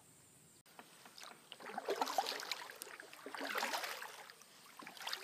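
Kayak paddle strokes dipping and splashing in calm creek water, the swells coming about every second and a half. The sound begins about half a second in.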